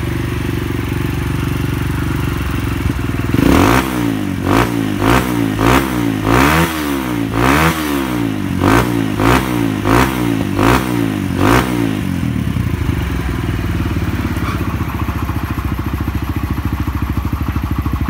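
Kawasaki KLX150's single-cylinder four-stroke engine idling through an aftermarket Norifumi slip-on muffler. About three seconds in it is revved in a run of about a dozen quick throttle blips, each rising and falling in pitch. Near twelve seconds it settles back to a steady idle.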